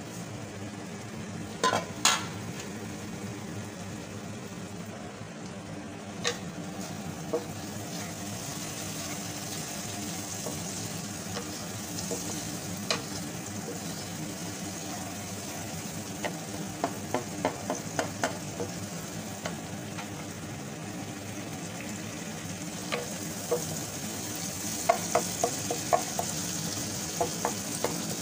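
Chopped tomato and onion masala sizzling in hot oil in a pan, with a steady hiss. A spoon stirring it knocks and scrapes against the pan in short clicks, which come in quick runs a little past halfway and again near the end.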